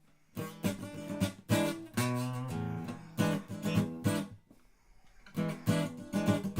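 Guitar strummed in chords, starting about a third of a second in, with a short break a little past the middle before the strumming picks up again.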